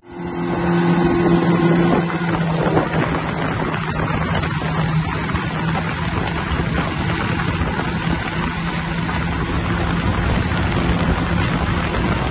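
Boat engine running with a steady low hum, under the rush of wind and water noise.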